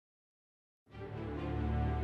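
Digital silence for about a second, then quiet background music with sustained held notes fades in.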